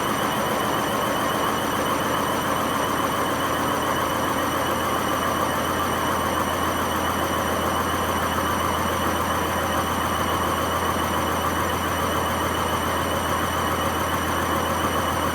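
Hotpoint WMA50 washing machine spinning at full speed with no ballast, its worn drum bearings giving a steady, loud rumble with a high, slightly warbling whine. The sound is the sign of very bad bearings.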